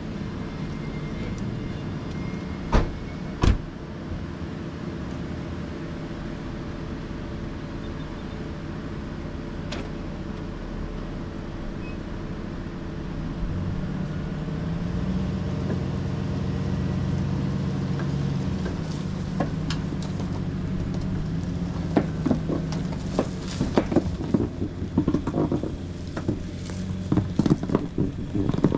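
Pickup truck engine running steadily, then building up from about 13 seconds in as it takes up the load of towing a second pickup on a strap. Two sharp knocks about 3 seconds in, and a run of crackles and pops in the last several seconds.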